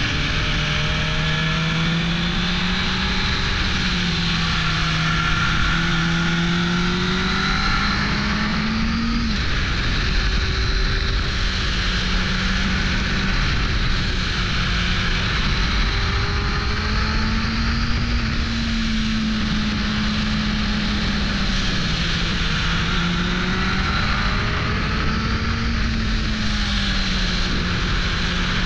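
Onboard sound of a 1998 Suzuki GSX-R 600 SRAD's inline-four engine under way, its note rising and falling with the throttle and dropping sharply about nine seconds in. Heavy wind rush on the microphone runs underneath.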